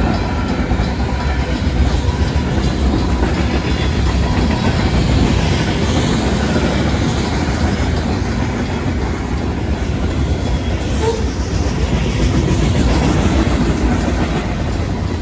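Union Pacific freight train's cars rolling past at speed: a steady rumble of wheels on rail with clickety-clack over the joints.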